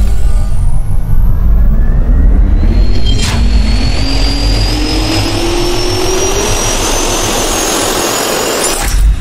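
Jet-turbine spool-up sound effect: a loud rushing roar with a whine that climbs steadily in pitch. A sharp click comes about three seconds in, and a heavy low hit near the end cuts it off.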